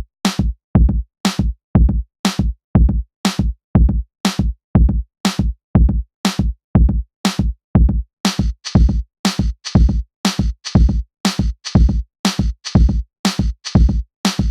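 Electronic music with a steady drum-machine beat of heavy kick drums and sharp snare-like hits; a hissing layer joins about eight seconds in.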